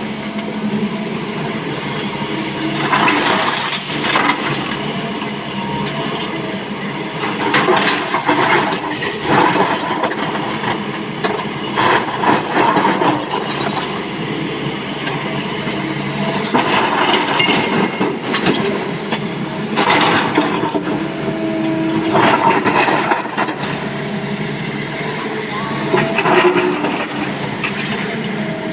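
Hydraulic excavator working: its diesel engine runs steadily under load, with a loud rough burst of noise every few seconds.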